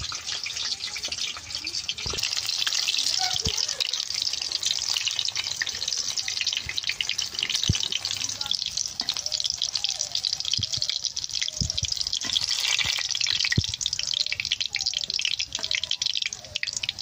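Besan-battered lollipop chops deep-frying in hot oil in a kadai: a steady crackling sizzle, easing off near the end, with a few light knocks.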